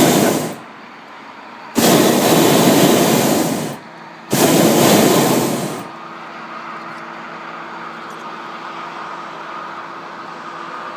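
Hot air balloon's propane burner firing overhead in three blasts: a brief one, then two longer ones of about two seconds each, each a loud steady rushing roar that cuts off sharply. A steadier, quieter hum follows.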